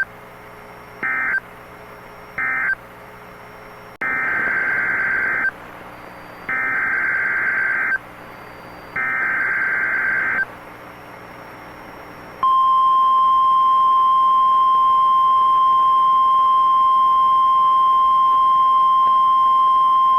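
NOAA Weather Radio alert signals over a faint steady receiver hum. First come two short bursts of SAME data tones closing out the previous warning. Then three longer buzzing bursts of SAME header data, about a second and a half each, and about twelve seconds in the steady 1050 Hz warning alarm tone starts and holds, heralding a new tornado warning.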